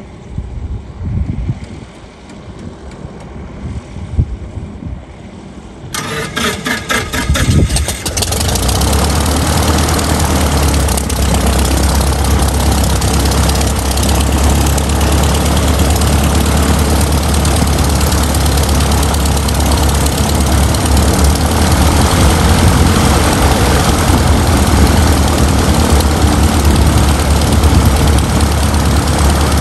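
Robin DR400 light aircraft's piston engine being started: after a few quieter seconds with low thuds, the starter turns the propeller over in rapid even strokes about six seconds in, and the engine catches about two seconds later and settles into a loud, steady idle.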